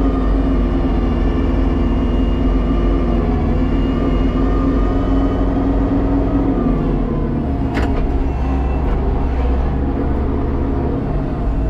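Kubota tractor's diesel engine running steadily at high rpm under load, with the PTO-driven snow blower engaged, heard from inside the cab. The engine note drops slightly a little past halfway, and there is a single sharp click shortly after.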